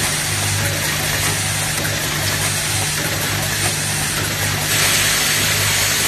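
Automatic cabinet-hinge assembly machine running: a steady mechanical hum with a low tone and a high hiss that pulse about once a second as the rotary table cycles. A louder hiss comes in about five seconds in.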